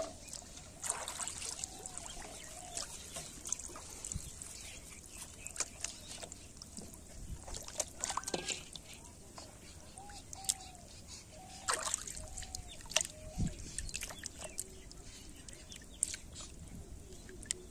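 Shallow pond water splashing and trickling as hands reach in and lift a plastic-bottle fish trap and its line, with scattered small splashes and drips.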